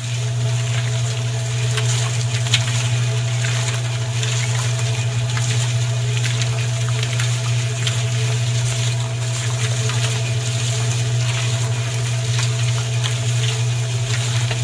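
A small motor running steadily with a constant low hum, while a gritty crackling, like grit being churned or crushed, goes on over it.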